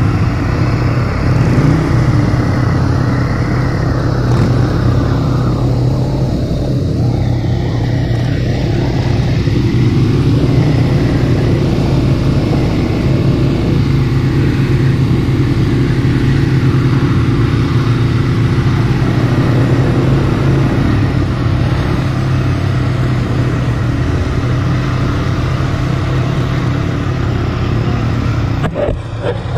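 ATV (quad bike) engine running steadily under way on a dirt track, heard from the rider's own machine; the sound dips briefly near the end.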